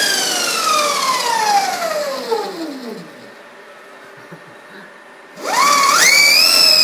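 Electric go-kart motor and belt-driven rear axle whining as they coast down, the pitch falling steadily for about three seconds until the motor stops. About five and a half seconds in, the motor spins up again with a sharp rising whine that holds at a high pitch.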